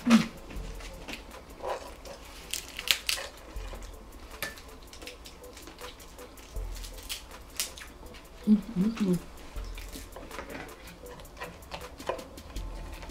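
Close-miked mukbang eating sounds: crab legs and shrimp being peeled and picked apart by hand, with scattered crackles and clicks and chewing. There is a brief hummed vocal sound right at the start and another about eight and a half seconds in.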